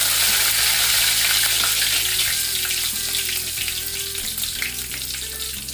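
Tempering of black pepper, cumin and curry leaves sizzling hard in hot oil, ghee and vanaspati. The sizzle is loudest at first and eases a little after about two seconds.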